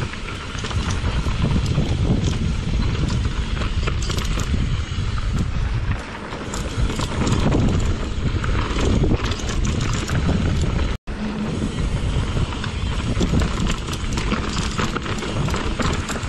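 Mountain bike riding down a rough dirt trail: tyres rolling and crunching over the ground while the bike rattles and clatters, under a heavy low rumble. The sound cuts out for an instant about eleven seconds in.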